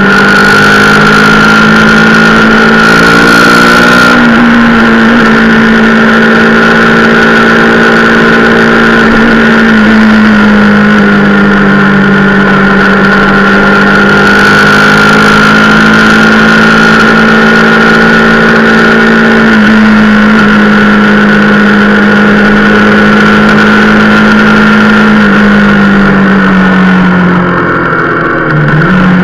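Rieju Marathon Pro supermoto's engine running at steady riding revs, its pitch stepping up and down a few times. It drops as the bike slows near the end, then picks up again. A steady high whine runs over it, with rushing road noise.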